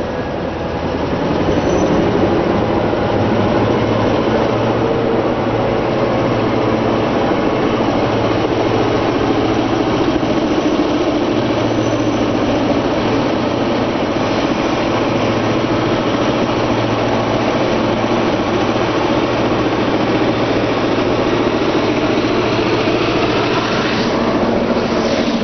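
GM-EMD two-stroke V16 diesel of a TMY locomotive working as it hauls a freight train past: a steady deep engine drone that swells about a second in and grows harsher near the end as the locomotive comes close.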